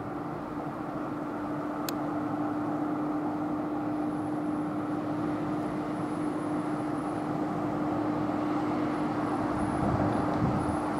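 Steady outdoor background rumble with a steady low hum running through it and a single sharp click about two seconds in; it grows a little louder toward the end.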